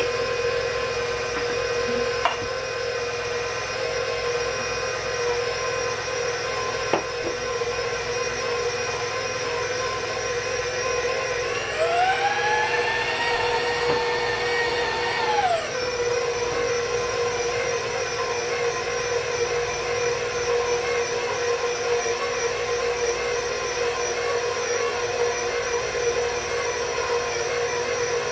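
Electric stand mixer running steadily with a dough hook, kneading bread dough as the flour works in. About halfway through, a higher whining tone rises, holds for about four seconds, then falls away.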